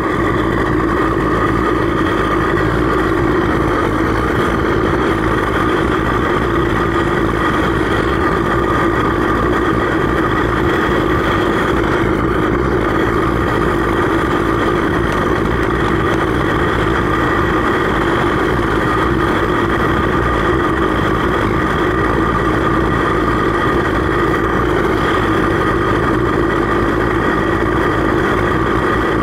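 Homemade bucket melting furnace running steadily for an aluminum melt, a loud, even, unbroken rushing hum of its burner and air blast.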